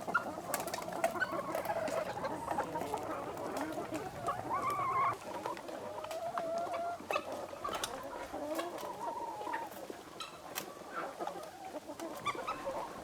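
A flock of Leghorn hens clucking and calling all at once, many voices overlapping, with a few longer drawn-out calls about halfway through.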